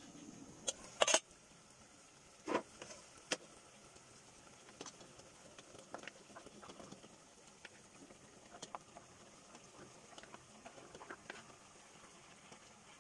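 Aluminium cooking pot and its lid knocking a few times, sharply, about a second in. Then squash chunks slide off a plate into the simmering broth and a wooden spatula stirs them, making scattered small taps, plops and scrapes over a faint steady hiss.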